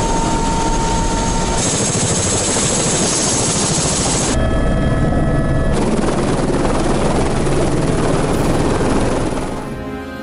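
Helicopter turbine and rotor running loud and steady during lift-off, with a steady high whine over the noise. The character changes abruptly a few times, as if between inside and outside microphones, and the noise drops away near the end as music comes in.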